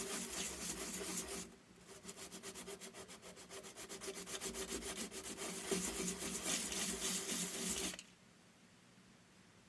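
Sandpaper rubbed back and forth over the hacksawed end of a hollow towel-bar tube in quick, even strokes, smoothing off the burrs. The strokes go softer for a moment about one and a half seconds in, pick up again, and stop about eight seconds in.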